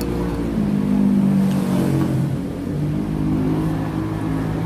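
A motor vehicle engine running, its pitch slowly rising and falling, loudest about a second in.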